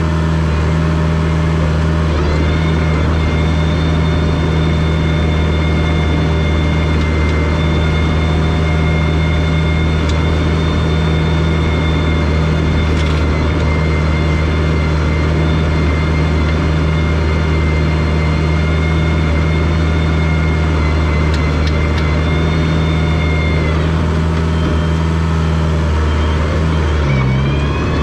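Diesel engine of a rubber-tracked Komatsu DP21 bulldozer running steadily, with a high whine over it that stops a few seconds before the end. Near the end the engine note briefly dips and wavers.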